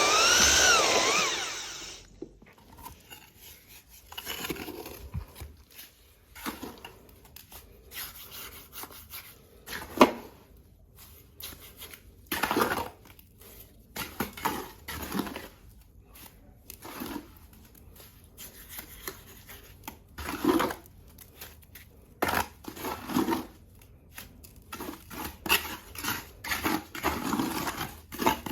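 A power tool whines for about two seconds, its pitch wavering, then stops; after that come irregular knocks, clicks and short scrapes of hand tool work on pipe fittings.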